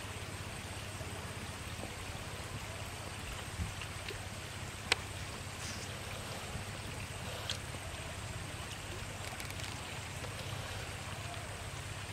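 Steady outdoor background hiss and low hum, with a few soft clicks and mouth smacks from someone eating with their hands, the sharpest about five seconds in.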